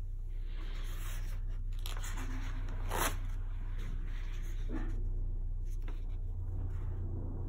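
Paper pages of a large spiral-bound album being turned by hand: a rustling sweep, then a sharp slap of paper about three seconds in, and a smaller brush of paper a little later. A steady low hum runs underneath.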